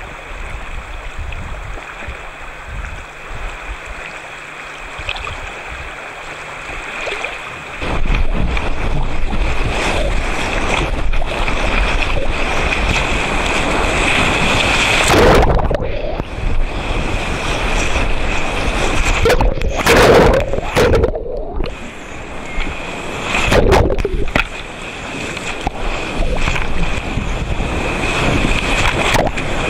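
Whitewater rapids rushing and splashing close to the microphone at river level. The rush grows louder about eight seconds in, and several heavier splashes surge over it.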